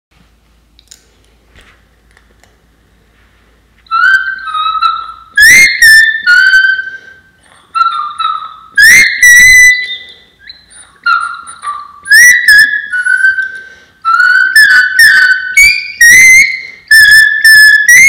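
Sheepdog whistle blown by mouth: after a quiet start, a loud run of high-pitched whistled notes begins about four seconds in. Some notes are held, some step between pitches, and some sweep quickly upward, with short gaps between them.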